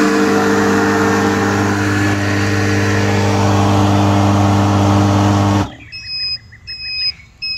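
Fieldpiece MR45 refrigerant recovery machine running with a steady motor hum as it pulls refrigerant out of an air-conditioning system. The hum cuts off abruptly about five and a half seconds in, and a short high electronic beep then repeats about every two-thirds of a second.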